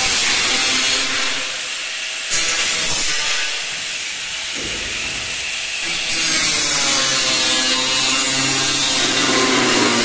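Angle grinder with an abrasive cut-off disc cutting through galvanised steel decking sheet: a harsh, high-pitched grinding hiss over the motor's whine, which sags and rises as the disc is loaded. The cut eases off for a few seconds, then bears in again from about six seconds in.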